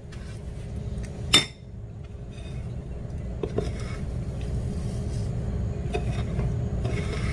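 A single sharp clink of a fork against a bowl, then soft scratchy rustling as a potato croquette is rolled and pressed in breadcrumbs, over a steady low rumble.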